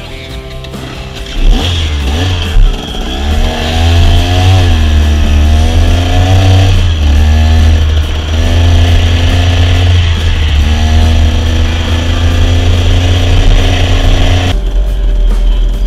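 Two-stroke KTM 300 dirt bike engine, coming in loud about a second and a half in after a fading bit of music, then revving up and down as the bike accelerates and shifts through the gears.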